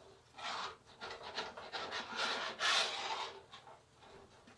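Small metal grill scraper scraping the bottom of a large cast iron skillet full of milk gravy, in about five strokes, the loudest near three seconds in. It is lifting the browned bits off the pan's bottom.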